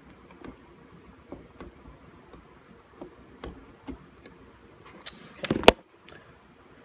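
Small scattered clicks and taps of hand tools while solder is being cleared from a circuit board's stepper-motor holes, with a louder sharp clatter of knocks about five and a half seconds in.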